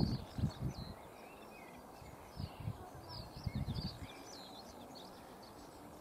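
A flock of small birds chirping: many short, high calls with quick rising and falling sweeps, scattered throughout. Low gusts of wind rumble on the microphone now and then.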